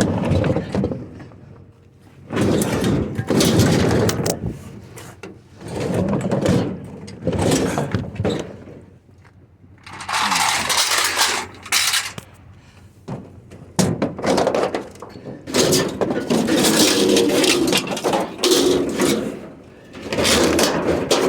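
Repeated scraping and knocking as a scrap refrigerator is shoved and turned by hand, coming in loud irregular bursts with short pauses between.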